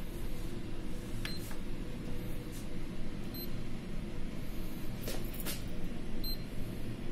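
Touch-panel key beeps from a Canon imageRUNNER 2525/2520 copier as its screen is pressed: three short, high beeps a few seconds apart. A steady low hum runs underneath, with a few faint clicks.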